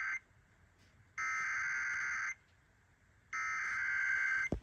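Emergency Alert System SAME header: three bursts of data tones, each about a second long with about a second between them, the first already underway. This digital header opens an alert, here a flash flood emergency. A short click follows the last burst.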